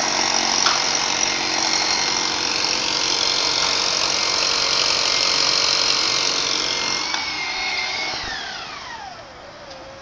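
A motor running steadily and loudly, then shut off about eight seconds in, winding down with a falling whine over about two seconds.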